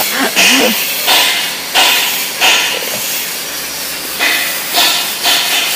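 Sandpaper rubbing on a car body panel being filled and smoothed: repeated short hissy strokes, about three every two seconds, with a pause of over a second in the middle before they resume.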